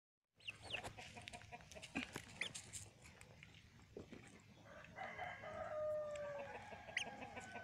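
Chickens calling: a few short, high, rising peeps, and about five seconds in one long drawn-out call that falls slightly in pitch.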